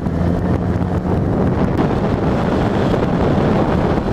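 Wind buffeting the helmet microphone of a moving Honda CB650F, with the bike's inline-four engine running steadily underneath. The engine's hum is clearest in the first second, then mostly covered by the wind.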